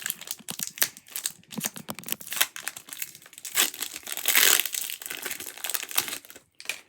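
Foil booster-pack wrapper crinkling as it is handled and torn open, with one louder, longer crinkle-rip about four seconds in.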